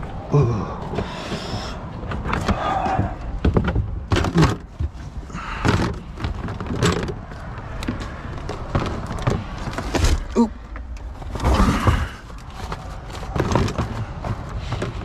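Plastic storage bins and other items being handled at a car's open trunk: an irregular string of bumps, knocks and scraping rustles every second or two.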